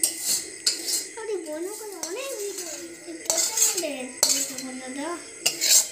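A metal spoon scraping and knocking against a metal pan as thick cooked food is scraped out into a cooking pot, in a handful of separate strokes.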